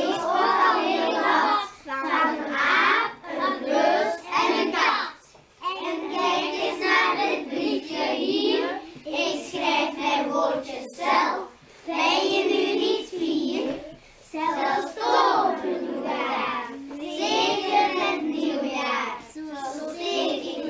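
A class of young children singing together in unison, in phrases with short breaks between them.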